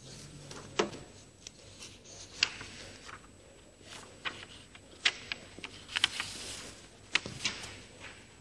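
A sheet of paper being handled over a steel printer flatbed: scattered sharp taps and clicks with rustling of paper, busiest around the sixth second. A faint low hum stops about a second in.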